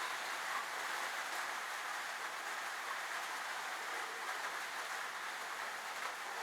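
A steady, even hiss of background noise, with no distinct events.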